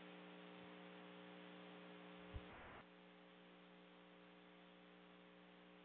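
Near silence: a faint, steady electrical hum with a single soft click a little past two seconds in.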